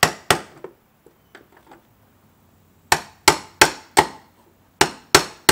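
Hammer striking a tool against the fuel pump's locking ring on top of the fuel tank, driving the ring round to lock the pump back in. The strikes are sharp, each with a short ring: two at the start, then after a gap of over two seconds a run of about eight, roughly three a second.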